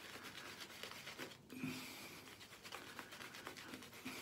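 Faint wet rubbing of shaving-soap lather being worked into a beard and cheek with the fingers: a quick, irregular run of small soft scratches and squelches.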